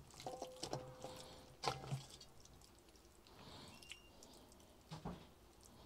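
Faint knocks and clicks of utensils and dishes handled on a wooden table, the loudest about two seconds in and again about five seconds in.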